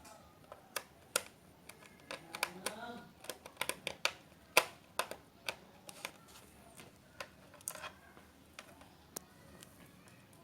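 Irregular sharp clicks and taps of hands working on a laptop's plastic case and its screws during reassembly, the loudest about halfway in.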